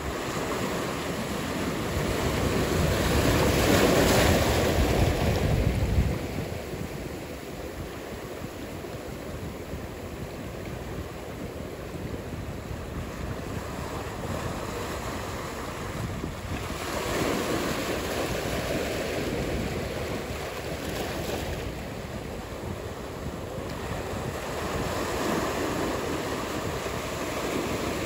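Ocean surf: a steady rushing wash of breaking waves. It swells to its loudest over the first few seconds, drops off sharply about six seconds in, and swells again more gently about two-thirds of the way through.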